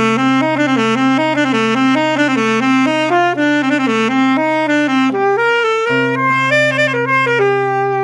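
Saxophone playing a melody over a steady low held note. The melody runs through quick notes in the first half, then climbs to longer, higher held notes and settles on one sustained note near the end.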